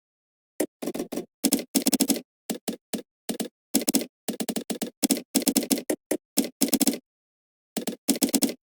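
Typing on a computer keyboard: quick runs of keystrokes broken by short pauses, with the gaps between runs completely silent.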